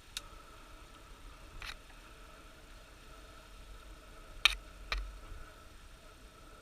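A few short clicks and knocks of handling, the loudest about four and a half seconds in, over a faint steady hum.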